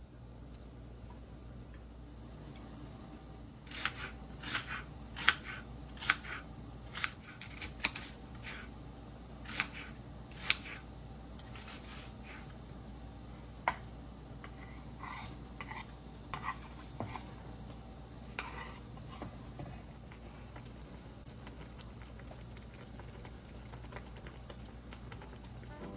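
A series of short, sharp clicks and taps from kitchen utensils and dishes, most of them close together in the first half, with a few softer ones after, over a faint steady hum.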